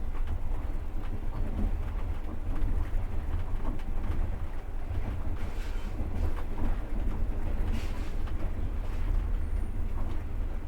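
Passenger train running, heard from inside the carriage: a steady low rumble of the coach on the rails, with a few faint knocks of the wheels over the rail joints.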